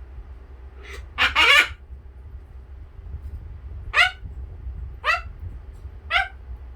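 A parrot imitating a dog's bark. There is a loud double bark about a second in, then three single barks about a second apart, each dropping in pitch.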